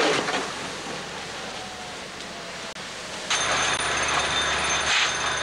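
Steady rushing noise of a house fire scene, burning structure and fire apparatus blending into one low rumble and hiss. About three seconds in it cuts abruptly to a louder rush with a thin, steady high whine over it.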